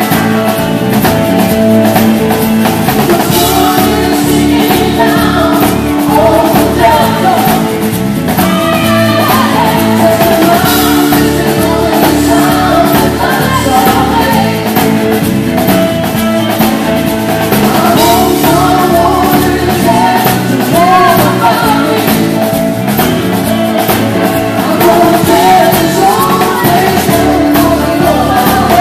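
Live band music with a drum kit and guitar and a singing voice, starting abruptly and running loud and steady.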